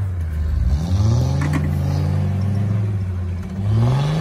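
An off-road SUV's engine revving in snow: the pitch climbs about a second in, holds, drops, then climbs again near the end, with a little clatter in between.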